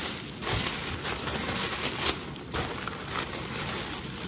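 Glossy wrapping paper crinkling and tearing as it is pulled off a box by hand, an uneven rustle that swells and eases several times.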